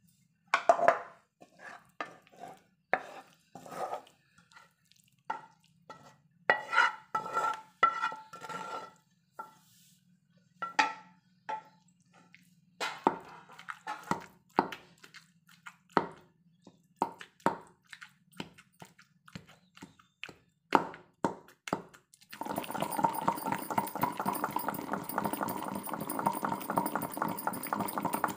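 Wooden pestle pounding tomato and green chilli chutney in a stone mortar: uneven, wet-sounding thuds with short pauses. For the last several seconds a denser continuous sound takes over.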